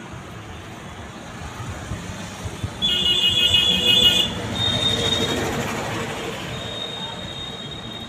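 A vehicle going by, swelling and then fading. A shrill, high-pitched tone lasts about a second and a half from about three seconds in, and two shorter shrill tones follow.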